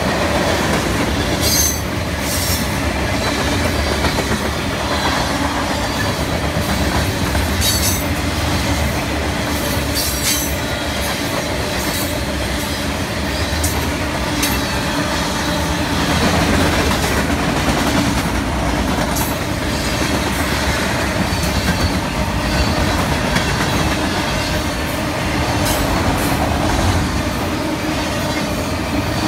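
Freight cars of a mixed freight train rolling past close by: a steady loud rumble and clatter of steel wheels on the rails. Short, sharp metallic clanks stand out every few seconds.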